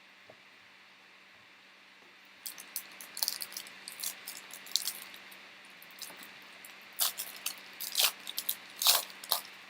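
A trading card pack being opened and handled: a quick string of sharp crinkles and clicks from the foil wrapper and cards. It starts about two and a half seconds in and is loudest near the end.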